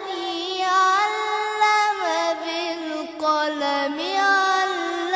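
A single voice reciting the Quran in slow, melodic tajweed style. It holds long drawn-out notes that bend and turn in pitch, with a short break about three seconds in.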